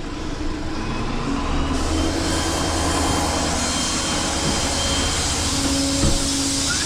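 Vehicle engine running steadily with a low drone, which grows stronger and gains a hiss a little over a second in. Right at the end a warbling horn tune begins.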